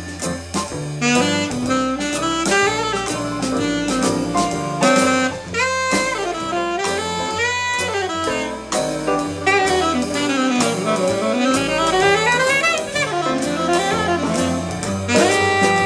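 Live jazz instrumental: a saxophone solo in quick runs that climb and fall, over a plucked upright double bass.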